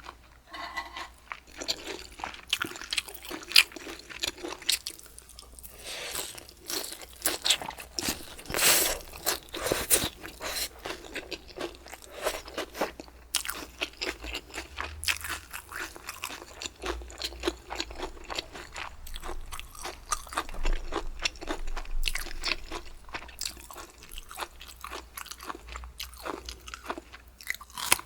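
A person chewing crunchy bamboo shoots close to the microphone: a dense, irregular run of wet crunches and bites.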